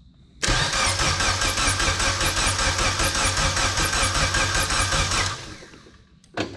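Honda K-series swap engine cranking over on its starter for about five seconds with an even, rhythmic turnover but never firing: there is no spark, because the Haltech ECU has no tune loaded. A single sharp click follows near the end.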